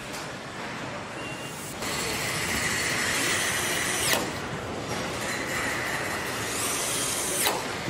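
Handheld cordless power screwdriver run twice. Each run is a steady high whine that drops sharply in pitch as the motor stops, once about four seconds in and again near the end. Steady assembly-hall noise sits underneath.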